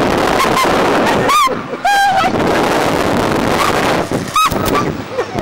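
Riders on a vertical bungy (reverse bungee slingshot) ride shrieking and screaming in a series of short, high cries. The cries come over a steady rush of wind on the microphone as the capsule is flung about.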